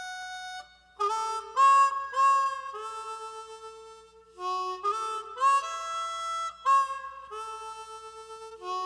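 Harmonica playing a solo in a recorded song: held notes and chords, breaking off briefly about a second in and again about four seconds in.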